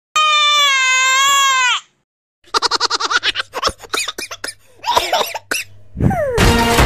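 A cartoon crying sound effect: one long wavering wail lasting about a second and a half that drops in pitch as it ends. After a short gap comes a burst of quick, choppy mocking laughter. Music with a falling swoosh starts near the end.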